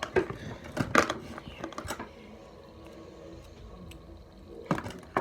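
Plastic fidget toys clacking and rattling as they are handled: a few sharp clicks in the first two seconds, a quieter stretch, then another clack near the end.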